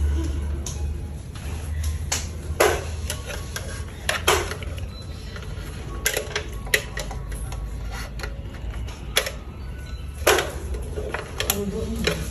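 Irregular sharp clicks and knocks of a green earth wire being fed and pressed into place inside a metal distribution board, over a steady low hum.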